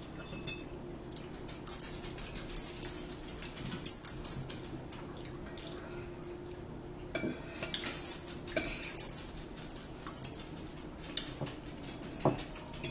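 Forks clinking and scraping against dinner plates while two people eat, in scattered irregular clicks over a faint steady hum.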